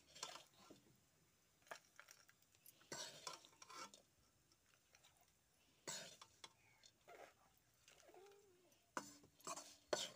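Faint scrapes of a steel ladle scooping cauliflower fry around a steel kadai, with light clinks as food is tipped onto a steel plate. The scrapes come every few seconds.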